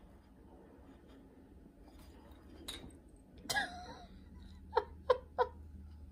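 A short, soft human laugh in three quick pulses, just after a brief vocal sound and a faint click.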